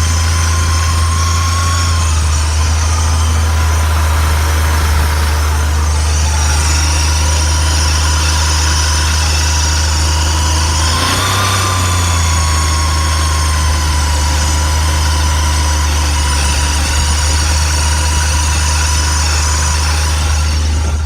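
Ski-Doo Skandic SWT snowmobile's 900 ACE three-cylinder four-stroke engine idling steadily with a thin, high-pitched squeal over it, the squeal's pitch wavering and rising briefly about eleven seconds in as the engine note shifts. The owner has not found the cause of the squeal.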